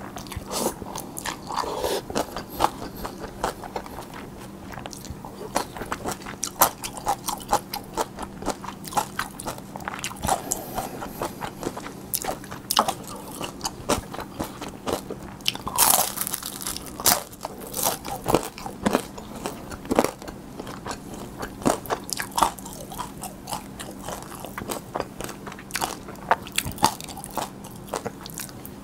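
Close-miked eating: irregular wet chewing and crisp crunching on cold spicy noodles with young-radish kimchi, cucumber and fried dumplings, with a few noodle slurps.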